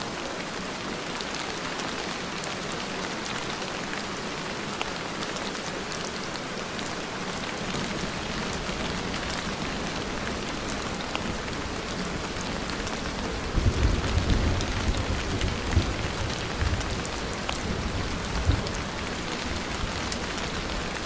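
Steady rain falling, a dense hiss with scattered sharp drop ticks. About two-thirds of the way in, a low rumble swells for a few seconds and fades.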